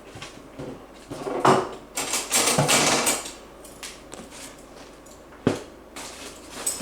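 Knocks and clatter of a food container being pushed to the back of a pantry shelf among other items: a knock about a second and a half in, about a second of scraping after it, and a single sharp knock near the end.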